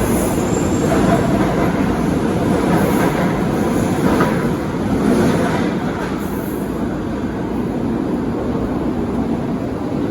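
Rio Metro 4000-series subway train moving through the station, a steady noise of wheels and running gear that grows a little quieter over the last few seconds.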